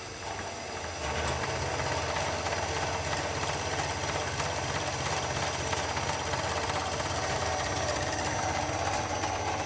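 Delta Rockwell 17-600 drill press running on its three-phase motor, fed by a variable frequency drive that is speeding it up from 30 Hz to 60 Hz. It gets louder about a second in, then runs steadily.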